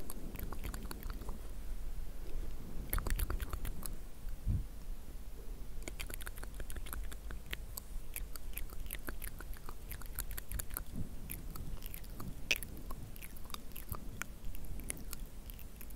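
Close-miked ASMR sounds: a dense, irregular run of small sharp clicks and crackles, with a brief low rumble about three seconds in.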